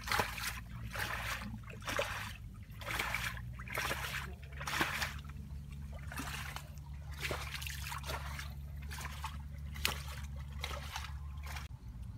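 Hands splashing and squelching in shallow muddy water: a string of short, irregular splashes over a steady low hum.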